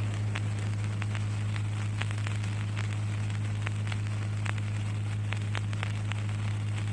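Recording background noise between recited phrases: a steady low electrical hum under a hiss, with scattered faint crackling clicks, several a second.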